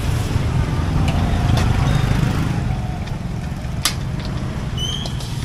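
Street noise: a steady low rumble of road traffic, with one sharp clink of a metal spatula against a wok about four seconds in and a brief high squeak near the end.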